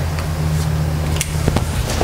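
A box truck idling with a steady low hum, and a few sharp knocks as someone moves about on the truck's cargo floor.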